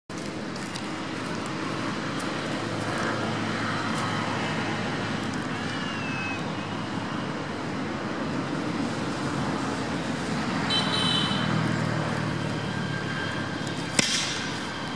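Steady outdoor background noise with no speech, a brief high-pitched call partway through and a single sharp click near the end.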